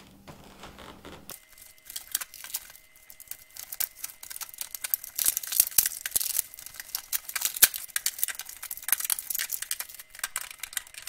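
Stiff plastic blister packaging of a screwdriver set being cut and torn open by hand, with rapid irregular crackling and crinkling that picks up after the first second or so.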